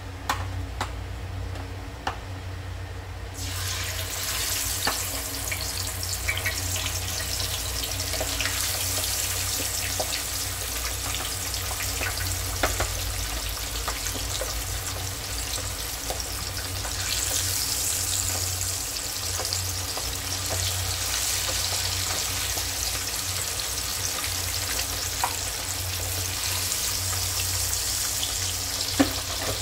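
Pieces of wolf herring (ikan parang) frying in hot oil in a wok, sizzling steadily with scattered pops. The sizzle starts suddenly about three seconds in, as the fish goes into the oil.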